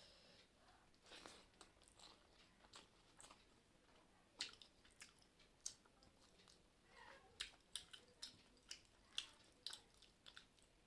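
A person chewing and eating a meal of rice and curry close to the microphone: quiet mouth noises with short, sharp smacks that come several times a second in the second half.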